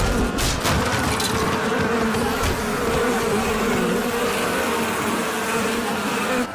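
A swarm of bees buzzing, a steady dense drone.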